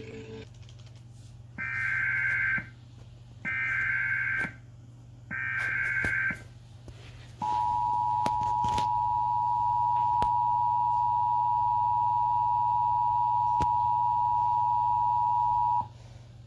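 Emergency Alert System signal. First come three evenly spaced, one-second bursts of the screechy digital SAME header, then the two-tone attention signal: a steady tone of two close pitches held for about eight seconds, which cuts off near the end. Together they open an emergency broadcast, here a missile-threat alert.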